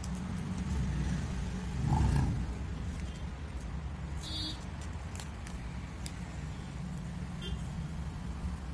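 Steady low rumble of road traffic, swelling about two seconds in, with faint clicks of newspaper being handled and folded.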